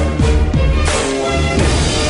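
Background music with a strong bass line and a steady beat.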